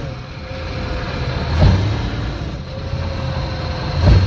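Classic VAZ (Lada Zhiguli) running under way, with two heavy knocks from the rear of the car, about a second and a half in and again near the end, as the gas pedal is released and pressed again. A knock like this can come from worn bushings on the rear axle's reaction rods.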